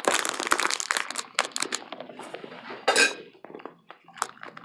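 An eating utensil clinking and scraping against a dish. Dense clicking for about the first two seconds, a short scrape about three seconds in, then scattered light clicks.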